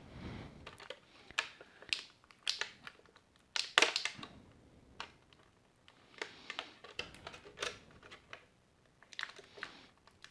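Small Mega Bloks plastic weapon pieces clicking and snapping as they are handled and pulled out of their frame, in irregular sharp clicks with light rustling, the loudest about four seconds in.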